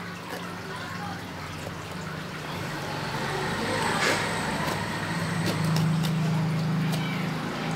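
A steady low motor hum that grows louder toward the middle and eases near the end, with faint knife scrapes and small cracks as a durian's spiky husk is cut and pried open.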